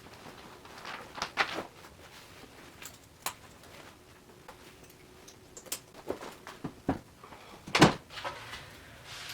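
A few scattered knocks and clicks, the loudest a single thump near the end.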